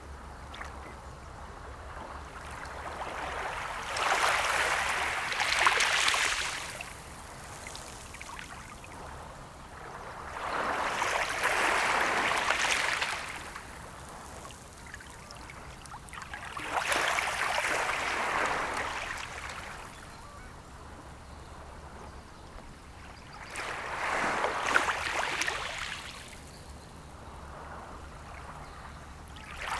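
Sea waves washing ashore: four waves swell up, break and fade, one about every six to seven seconds, with a soft wash of water between them.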